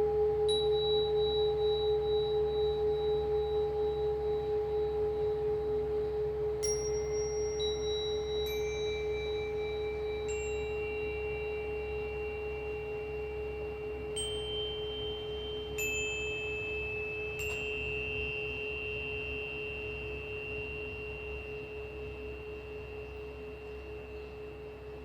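Singing bowl ringing with one steady low tone that fades slowly with a wavering pulse. About eight light strikes on small, high-pitched metal chimes ring over it, each holding one clear tone.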